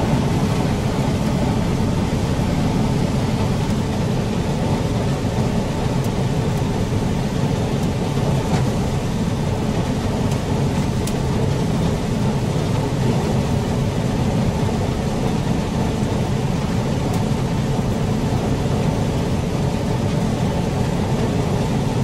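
John Deere combine running steadily while harvesting standing corn, heard from inside the cab: an unbroken low, dense noise of engine and threshing machinery.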